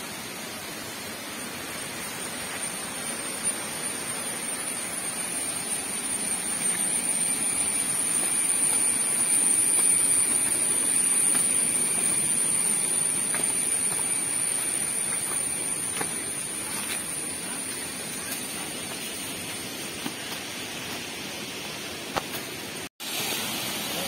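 Waterfall's rushing roar, a steady noise that swells to its loudest about halfway through and eases off again, with a steady high-pitched whine over it. The sound cuts out for an instant near the end.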